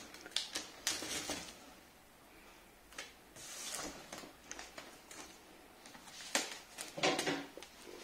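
Packing tape being pulled off its roll and pressed onto a cardboard moving box, heard as several short bursts of tape and cardboard handling noise, with a longer stretch of tape unrolling about three and a half seconds in.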